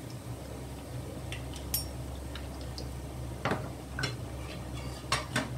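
Stainless-steel slotted skimmer clinking and scraping against a wok and a wire-mesh strainer as fried sesame balls are lifted out of the oil: scattered light knocks, the loudest about three and a half seconds in, over a steady low hum.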